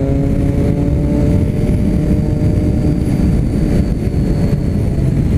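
Motorcycle engine running through a new aftermarket Jeskap exhaust while riding, its note rising a little as it picks up speed and then holding steady. A faint high whistle runs along with the exhaust rumble.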